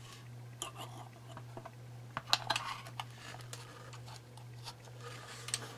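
Scattered light clicks and taps of small clock parts being handled and test-fitted by hand, over a steady low hum.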